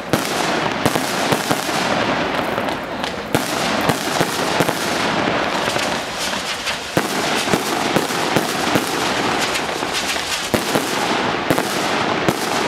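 A Lucky Fireworks 100-shot 30 mm cake firing shot after shot: a continuous hiss from the rising tails, broken by many sharp pops and cracks.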